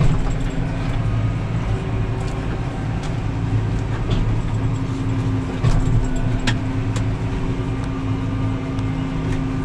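Farm tractor engine running steadily under load, pulling two full trailers. A steady hum comes in about halfway, with a couple of knocks near the middle.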